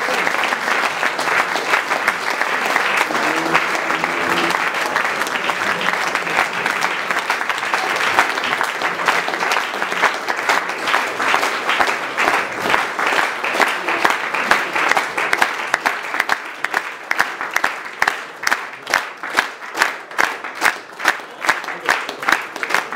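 A crowd applauding. About two-thirds of the way through, the applause turns into rhythmic clapping in unison, about two claps a second.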